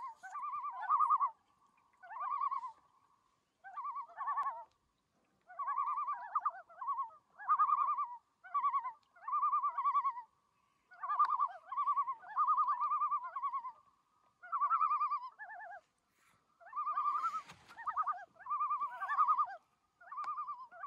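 Common loons calling: a long run of short, quavering phrases near one pitch, separated by brief pauses. About three-quarters of the way through there is a brief burst of noise.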